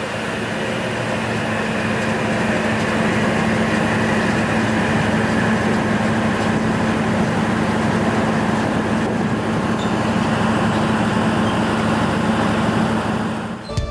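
Hocker Polytechnik centrifugal fan running: a steady rush of air with a constant low hum, growing a little louder in the first couple of seconds.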